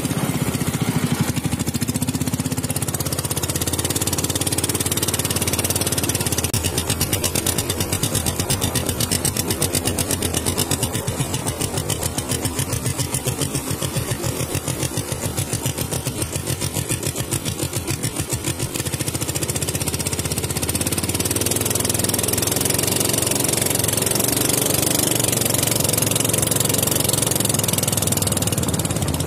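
Engine of a small wooden river longboat running under way, a fast even putter, with water rushing past the hull; it grows louder about two-thirds of the way through.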